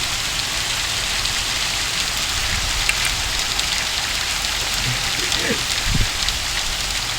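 Ice rain falling hard: a steady dense hiss of pellets striking surfaces, with many small individual ticks through it.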